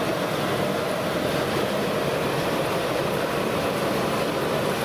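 Steady rushing noise of a gas burner with bonda batter frying in hot oil.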